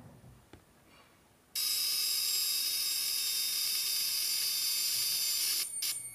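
Small flyback transformer whining loudly with a hissy, high-pitched, multi-tone noise while it drives a discharge through a fluorescent lamp starter. The whine switches on about a second and a half in, holds steady, then cuts off and returns in a couple of short bursts near the end.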